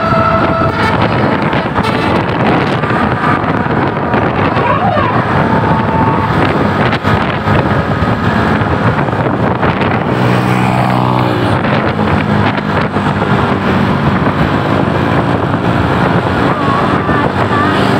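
Heavy vehicle noise of a bus going by, with wind buffeting the microphone; a multi-note basuri musical horn holds a chord through the first second and then stops.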